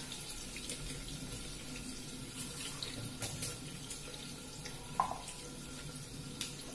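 Kitchen tap running into a sink, a steady stream of water, with a short clink about five seconds in.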